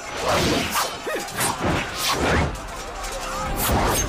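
Film fight sound effects from a sword-and-martial-arts brawl: a quick run of swishing whooshes and sharp hits, with fighters shouting.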